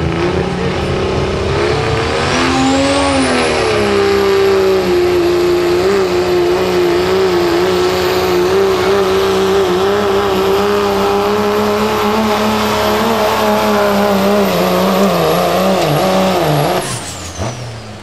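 Dodge Ram pulling truck's turbocharged Cummins diesel engine at full throttle, hauling a pulling sled. About two seconds in, the engine climbs in pitch and a high turbo whistle rises, then both hold steady under load. Near the end the whistle falls away and the engine drops off as the run ends.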